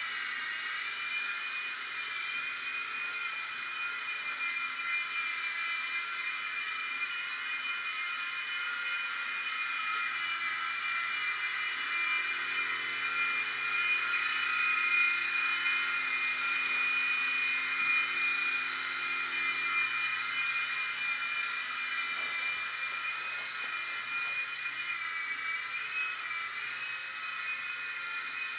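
Blade mCX2 micro coaxial RC helicopter in flight: the steady high-pitched whine of its small electric motors with the whir of its counter-rotating rotors. It grows a little louder about halfway through and wavers in pitch near the end as the throttle changes.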